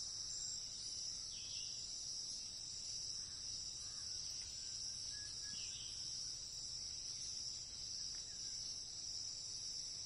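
A steady, high-pitched chorus of insects singing, with two faint short chirps, one about a second and a half in and one around the middle.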